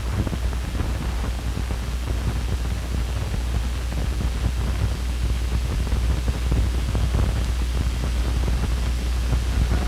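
Steady hiss over a low hum from an old 1950s film soundtrack, with no speech or music.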